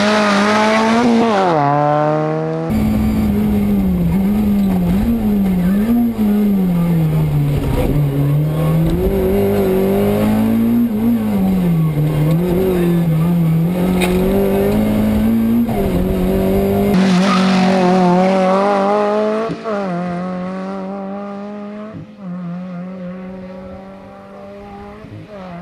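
Rally car engines revving hard through gear changes, the pitch climbing and dropping with each shift. In the middle the engine is heard from inside the cockpit, revving up and down repeatedly; near the end a car's engine fades away as it drives off.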